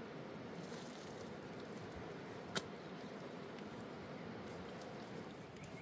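Wet mud plaster squishing as it is pressed and smeared by hand onto a stone wall, with a single sharp click about two and a half seconds in.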